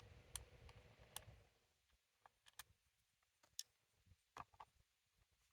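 Faint, scattered clicks and light taps of a hand screwdriver and small screws on the plastic housing of a Dyson cordless vacuum as the battery is screwed back in, with a low rumble in the first second and a half.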